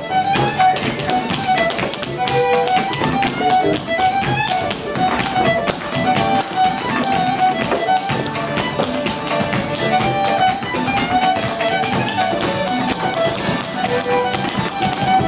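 Fiddle playing an Irish tune with guitar accompaniment, while dancers' shoes tap out rapid percussive steps on the stage floor.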